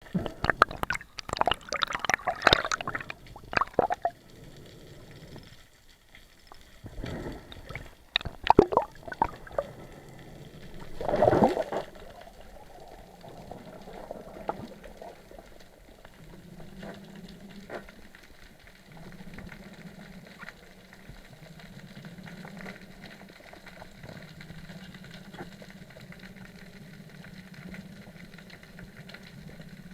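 Water splashing and bubbling in loud irregular bursts over the first twelve seconds, then a faint low steady hum.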